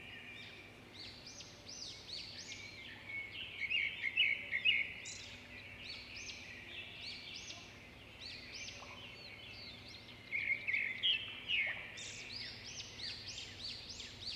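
Small birds chirping and singing in quick repeated calls, with two denser bursts of song, one around four seconds in and one near ten to twelve seconds, over a faint steady hum.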